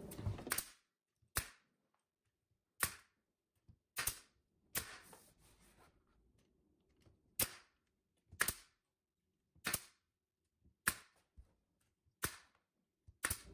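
Pneumatic brad nailer firing finishing nails into wooden cabinet trim: about ten separate sharp shots, irregularly spaced a second or two apart.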